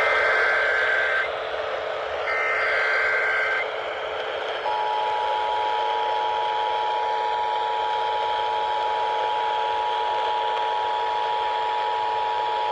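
Emergency Alert System tones from a weather radio receiver: two bursts of the harsh, buzzy SAME digital header data, then the two-tone attention signal held steady for about eight seconds, over radio hiss and a low hum. The tones mark the start of a new alert being broadcast.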